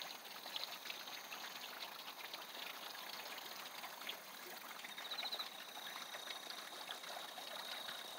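Outdoor ambience in a rice paddy: a steady hiss full of fine crackles. A thin, high, steady tone enters about five seconds in, starting with a quick flutter.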